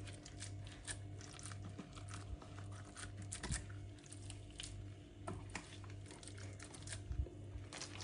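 Rubber-gloved hands handling whole marinated fish in a plastic storage box and a metal tray: irregular soft clicks, taps and rustles, over a low steady hum.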